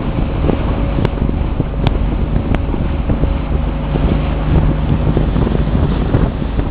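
Small motorboat under way: its engine runs steadily under heavy wind noise on the microphone, with a few sharp knocks in the first few seconds.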